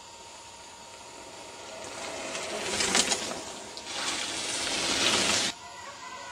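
Mountain bike tyres rolling over a gravel dirt track as a rider passes close by. The noise builds from about two seconds in and cuts off suddenly about five and a half seconds in.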